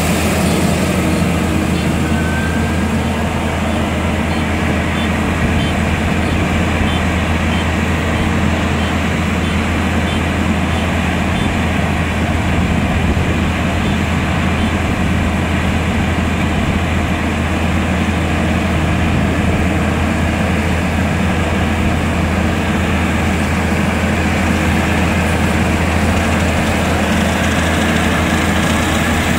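Kubota DR120 rice combine harvester running, its engine and machinery making a loud, steady drone with a deep low hum as it moves on its crawler tracks.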